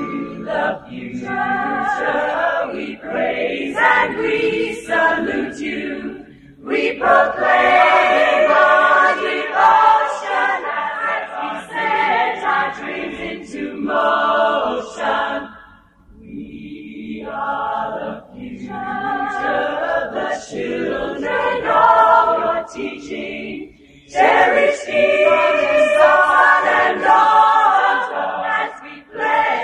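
A choir singing a slow, hymn-like school alma mater, line by line, with short pauses between phrases.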